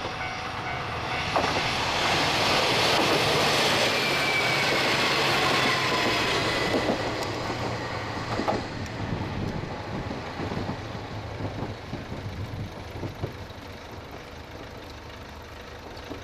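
A diesel train passing over a level crossing. The noise of the wheels on the rails builds to its loudest a few seconds in, with a few knocks from the rail joints and a tone that slides slowly down, then fades away as the train moves off.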